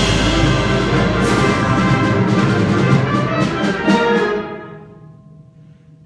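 High school symphonic band playing loudly, with brass and timpani, and short accents repeated through the first few seconds. About four and a half seconds in the band cuts off and the sound dies away, leaving a few faint held notes.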